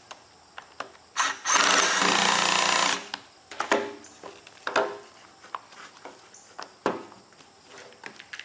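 One loud rasping, whirring sound lasting about a second and a half, followed by scattered light clicks and knocks from handling wiring harness parts.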